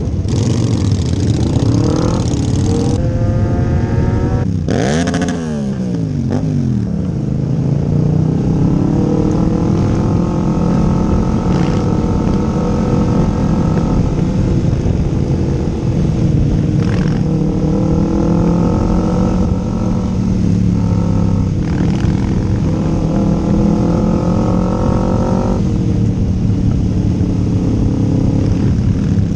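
Sport motorcycle engine heard from the rider's helmet, revving up steeply in the first few seconds and then cruising, with the note breaking and stepping several times as the rider shifts and rolls on and off the throttle. Wind rumble sits under it.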